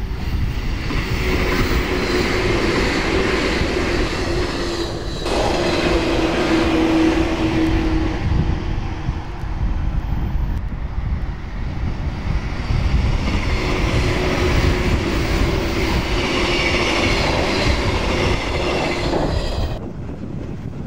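A 485-series electric limited-express train passing at speed, its steel wheels running loudly over the rails, with a steady whine. Near the end the sound drops off abruptly.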